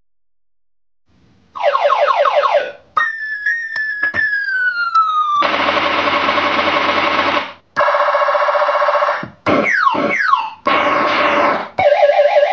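Electronic multi-tone horn circuit board cycling through its horn patterns: after about a second and a half of silence, a quick run of falling chirps, a slow falling wail, a buzzing steady tone, then rapid downward sweeps and more steady tones, each pattern cutting off abruptly before the next.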